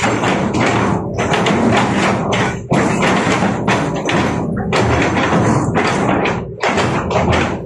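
Hitachi excavator working stony, muddy ground: its engine runs steadily under a dense, irregular clatter and thumping of rocks against the steel bucket.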